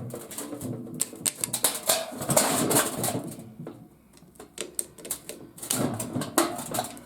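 Irregular clicking and rattling of hand tools and metal parts as a garage door opener is taken apart.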